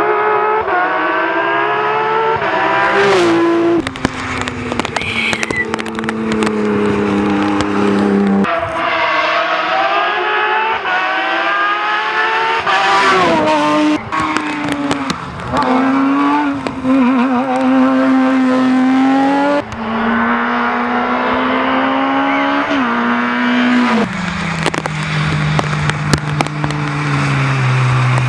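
Rally car engines at full throttle, the revs climbing and dropping sharply at each gear change, several times over, with sharp cracks throughout.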